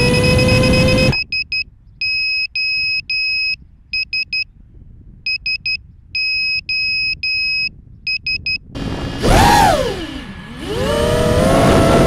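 FPV quadcopter's brushless motors whining, rising in pitch, then cutting off about a second in. The quad's beeper then sounds three short, three long and three short beeps (SOS) twice. Near the end the motors spin up again, the whine dipping in pitch and then rising as the quad takes off.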